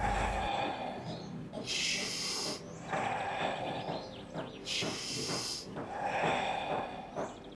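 A person doing forceful rhythmic deep breathing: a strong in-breath and a relaxed out-breath in turn, each a rush of air, about one full cycle every three seconds. This is the 'fire' breathing exercise, with forceful inhales and relaxed exhales.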